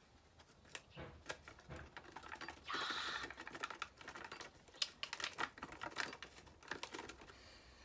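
Foil-lined protein-powder sachet crinkling and being tapped as the powder is shaken out into a bowl: a run of small irregular clicks and rustles, with a longer, louder rustle about three seconds in.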